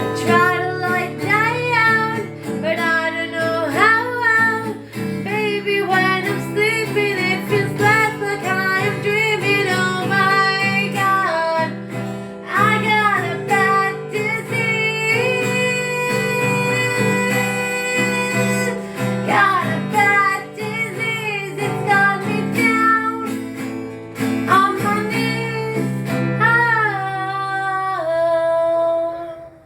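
Folk song with a voice singing a wordless melody over guitar. It ends on a long held sung note that stops suddenly.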